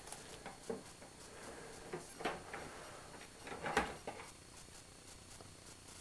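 Scattered light knocks and clunks as hands reach into an electrolysis tank to lift out an iron artillery shell. The loudest knock comes about four seconds in.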